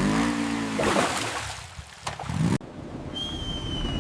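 Cartoon sound effects: a rushing, splash-like noise with short voice-like pitched sounds that cuts off sharply about two and a half seconds in, then a long whistle that slowly falls in pitch, the cartoon sound of something falling from above, over a low rumble.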